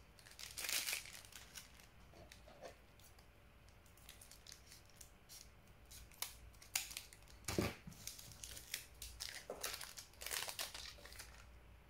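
Foil Pokémon TCG booster pack wrapper crinkling and rustling as it is handled and opened, in scattered short bursts, with light rustles of trading cards being set down.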